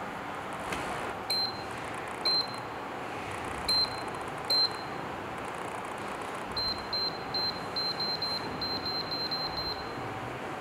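Desktop ceramic fan heater's control panel beeping as its touch buttons are pressed: four single beeps, then a quick run of about a dozen short beeps as the temperature setting is stepped up. A steady fan hiss runs underneath.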